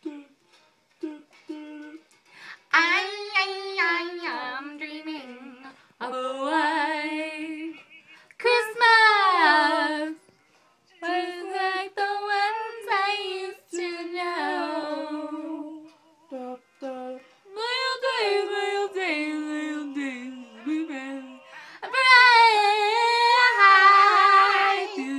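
A woman singing unaccompanied in phrases of a second or three with short breaks, sliding and wavering on the held notes. The loudest, highest phrase comes near the end.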